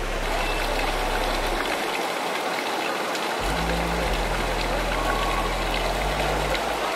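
Lazy river water rushing and churning steadily. A low steady hum underneath stops about a second and a half in and comes back from about three and a half seconds until near the end.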